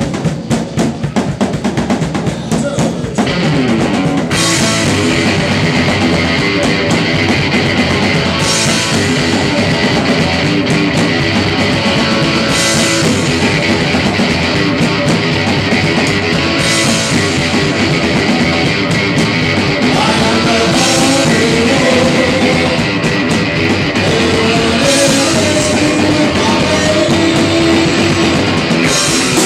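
Live rock band: a drum kit playing alone at first, then electric guitar coming in about four seconds in, with a crash cymbal struck roughly every four seconds and a man singing over the band.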